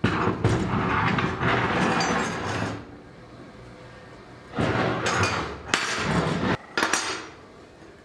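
Metal clattering and scraping on a workbench in two spells, the second made of several short knocks.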